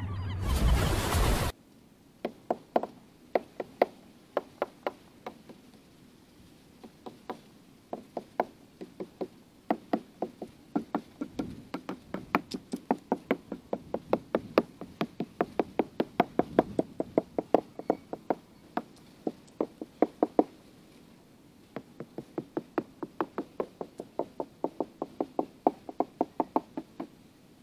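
A small hammer taps the wooden mahogany transom and hull planks of an old wooden boat: sharp knocks, a few a second in runs with short pauses, as the wood is inspected plank by plank. A brief loud rush of sound comes at the very start.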